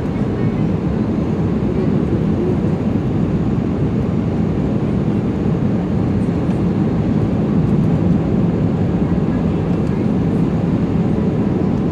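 Cabin noise inside an Airbus A320 during landing: a steady low rumble of the jet engines and rushing air, heard from a window seat by the wing.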